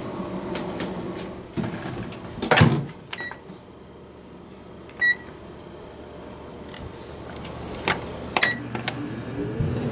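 A few handling knocks, the loudest about two and a half seconds in, as the jug goes into a Sharp RE-ST26F microwave oven. Then the microwave's keypad beeps twice, about two seconds apart, as the cooking time is set, with a couple more clicks near the end.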